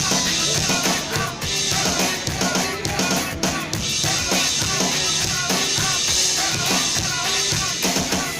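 Drum kit played along to a backing music track, with frequent drum hits over a pitched melody.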